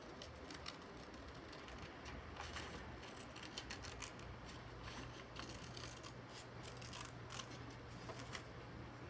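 Scissors snipping irregularly, a series of short cuts, as leather is cut for a reinforcing patch.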